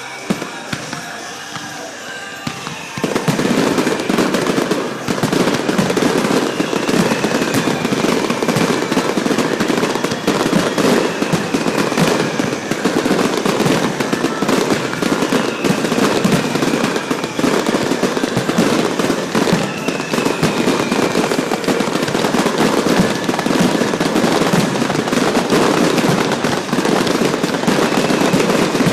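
Fireworks display: about three seconds in, a dense, continuous barrage of rapid bangs and crackling begins and keeps going, with whistling tones now and then.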